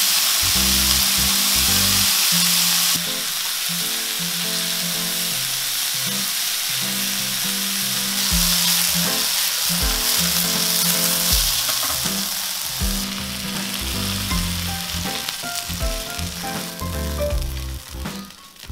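Sirloin beef cubes, onion and garlic sizzling as they stir-fry in a hot pan. The sizzling thins out near the end.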